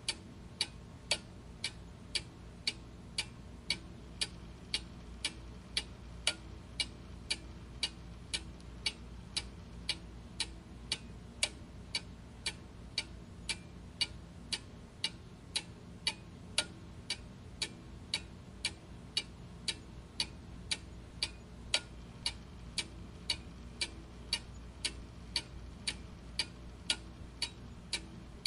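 A clock ticking steadily, about two sharp ticks a second, over a faint low hum.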